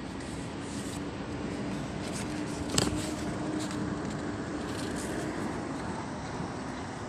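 Steady outdoor background noise with a faint low hum, broken by one sharp click about three seconds in.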